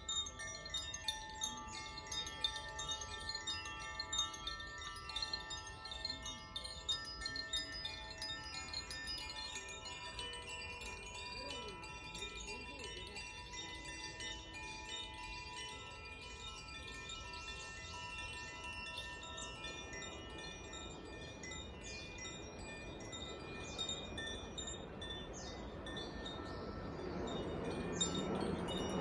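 Koshi and Zaphir chimes being played, many struck notes ringing out and overlapping, with the strikes coming thickly at first and then thinning out as the tones hang and fade. Near the end a rushing noise swells up underneath the chimes.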